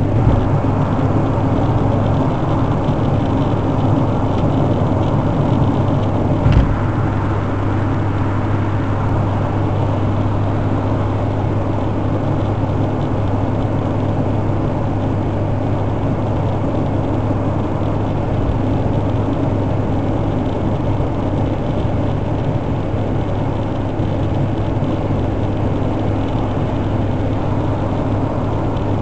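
Nissan GT-R R35 cruising on an expressway, heard from inside the cabin: a steady drone of engine and tyre-on-road noise with a constant low hum. A single brief knock comes about six and a half seconds in.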